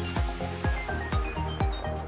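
Electronic dance music with a steady kick drum about twice a second and short, high synth notes over it.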